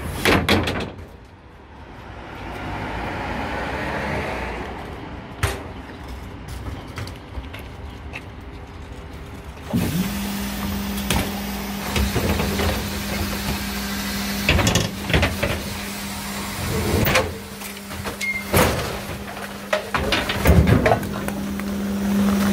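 Rear-loading electric garbage truck's compactor cycling: a few knocks and a hiss at first, then about ten seconds in a steady hydraulic hum starts as the packer blade sweeps the bags from the hopper, with repeated cracks and knocks of bags and their contents being crushed.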